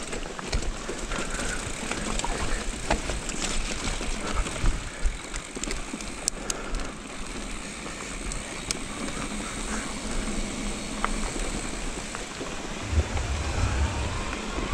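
Electric mountain bike rolling fast down a dirt trail: steady tyre and rushing motion noise with scattered clicks and rattles from the bike over rocks and roots. Near the end there is a low rumble as the wheels cross a wooden bridge.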